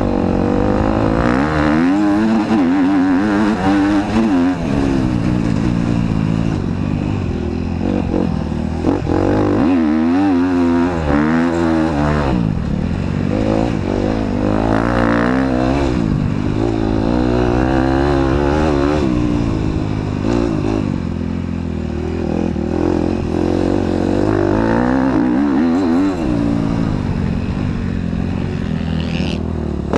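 KTM motocross bike's engine heard from on board, revving up and dropping back over and over as the rider opens and shuts the throttle and shifts gears, the pitch climbing and falling every few seconds.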